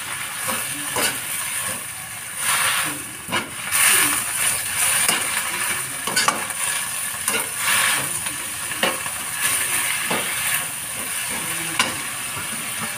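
Kangkong (water spinach) sizzling as it is stir-fried in a metal frying pan over a high gas flame, with a spatula stirring and scraping against the pan in irregular strokes throughout.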